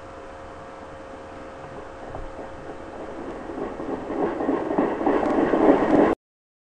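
Recorded train sound that grows steadily louder from about two seconds in, as if a train were approaching, then cuts off abruptly about six seconds in.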